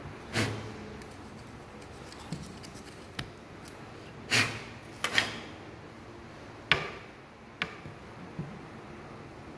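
Irregular sharp taps and clinks of hand tools and metal parts being handled and knocked together while working on a brush cutter gear head. There are about five louder knocks and a few lighter ticks between them.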